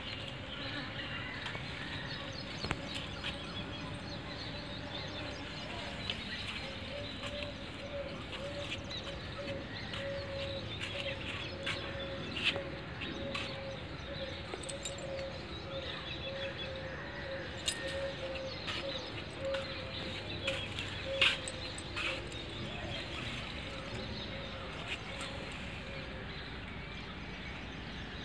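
Outdoor background noise with scattered short clicks, and a faint steady hum through the middle for about a quarter of a minute.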